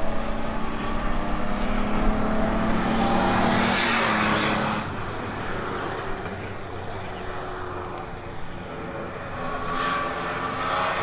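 A Ford Ranger race truck passes on the oval at speed. Its engine swells to a peak about four seconds in, then breaks off abruptly. For the rest, a Ford Ranger race truck's engine runs at speed around the track, its pitch rising and falling a little.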